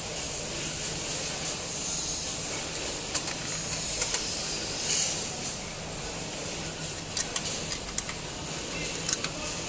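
Metal clicks and taps of an open-ended wrench on the steel bolts and slotted adjustment plate of a tray denester, with a louder clatter about five seconds in and a run of sharp clicks in the last few seconds, over a steady hiss.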